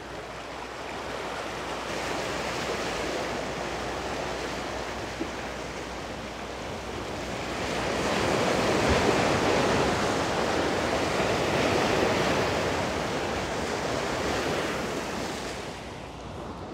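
Sea surf washing against the rocks, a steady rushing that swells louder around the middle and eases off near the end.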